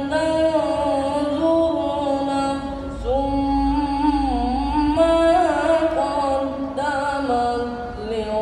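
A young reciter chanting Qur'an verses into a microphone in the melodic tilawah style: long held notes with ornate pitch turns. There is a short break for breath about three seconds in, then a rising entry into the next phrase.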